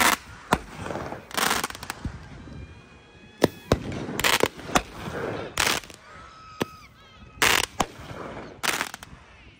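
A multi-shot consumer aerial fireworks cake firing shot after shot. There are about a dozen sharp bangs at uneven spacing, with crackling between them.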